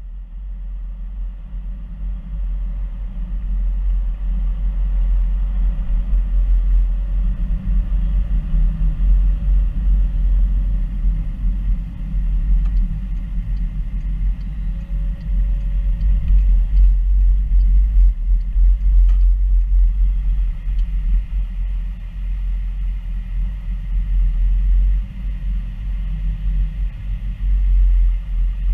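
Car engine and road noise heard from inside the cabin while driving: a steady low rumble that fades in over the first few seconds.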